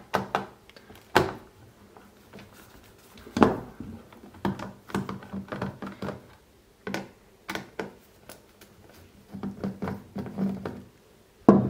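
Screwdriver working the screws out of the underside of a Dali Katch G2 speaker: irregular small clicks and knocks as the tool and hands touch the casing, with light handling noise between them.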